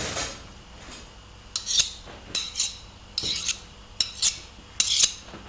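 Metal tools being handled and scraped against one another: a series of short, sharp metallic scrapes and clinks, several in quick pairs.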